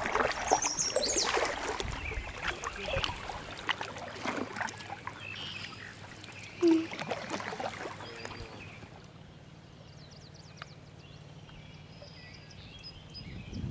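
Water rippling and splashing around a kayak in quick current, with paddle strokes, and one short, loud low sound about halfway through. After about eight seconds it drops to a quieter stretch with faint high bird chirps.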